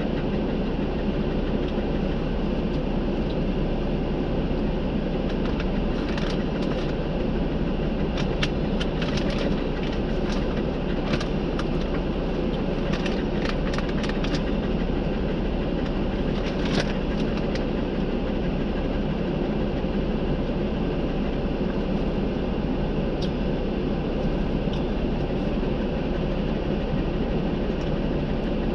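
Jeep engine running steadily, with a cluster of sharp clicks and snaps in the middle.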